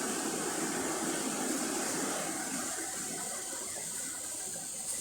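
Steady background hiss, with faint rustling in the first couple of seconds.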